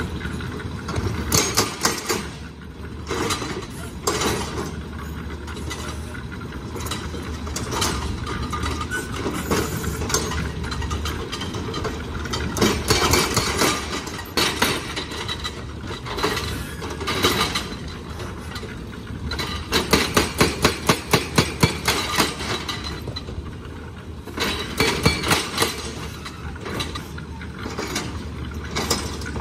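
An engine runs steadily under repeated knocks and clinks of stone and metal. About twenty seconds in there is a quick, even run of loud hammering blows, about four or five a second, typical of an excavator's hydraulic breaker.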